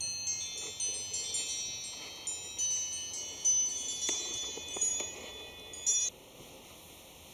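High, clear metallic chimes struck at uneven moments and ringing over one another, which stop abruptly about six seconds in.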